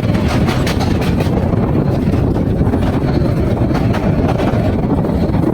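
Passenger train running along the track: a steady low rumble with scattered clicks of the wheels over the rails.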